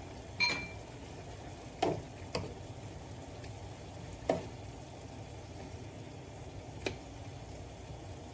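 Chicken simmering in broth in a pan, a steady low bubbling hiss, with a cooking utensil knocking against the pan five times, the first knock ringing briefly.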